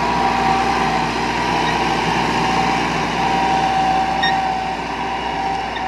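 Massey Ferguson 375 tractor's Perkins four-cylinder diesel engine running steadily under load, pulling a 13-tine cultivator through dry soil.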